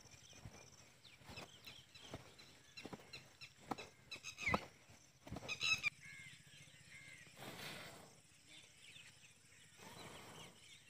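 Breath blown onto glowing charcoal under a grill: one long puff about two-thirds of the way in and a weaker one near the end. Faint clicks and crackles from the burning coals, with birds calling in the background.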